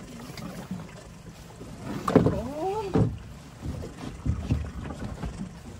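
Small open boats drifting on calm sea: water lapping and slapping against the hulls, with a few soft knocks. About two seconds in comes a short wavering call, like a voice.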